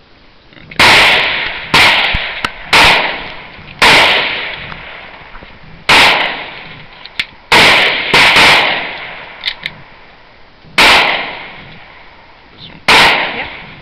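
About nine shots from a Sig 9mm, fired one at a time at an uneven pace, each loud crack followed by a ringing decay.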